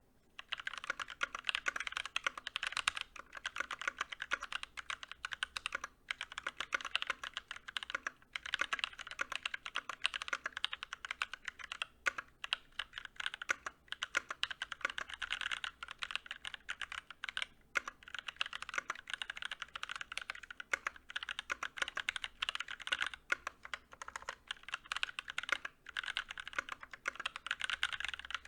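Continuous fast typing on a GK61 60% mechanical keyboard with lubed and filmed T1 tactile switches, an aluminum plate and a plastic case, with cherry-profile keycaps and lubed stabilizers; a steady stream of clacky keystrokes with a few short pauses.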